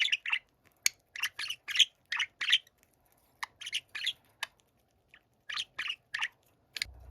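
Budgerigar chirping and warbling in quick clusters of short, high chirps, with brief pauses between the phrases.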